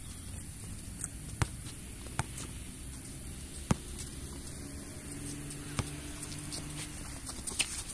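A basketball bouncing on a concrete court: single sharp slaps at irregular gaps of one to two seconds, with a few quicker ones near the end, over a steady high-pitched whine.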